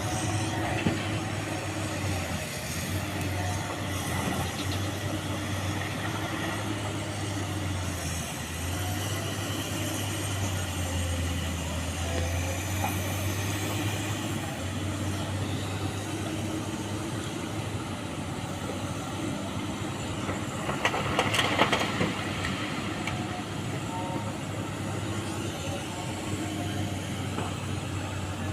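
Excavator diesel engine running steadily, with a short, louder clatter of stones about three quarters of the way through.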